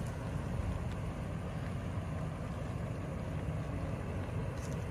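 2001 Toyota Land Cruiser's engine idling steadily, a low, even sound.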